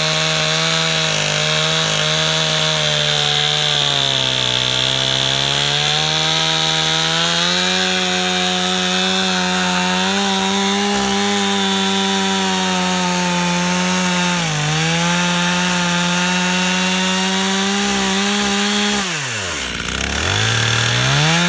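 Stihl two-stroke chainsaw running at high revs while cutting through a tree stump, its pitch sagging under load about four seconds in. Near the end the throttle is let off, so the engine drops sharply toward idle, then is revved straight back up.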